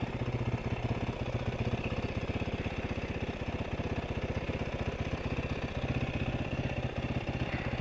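Motorcycle engine running steadily at low revs, an even rapid beat with no change in pitch.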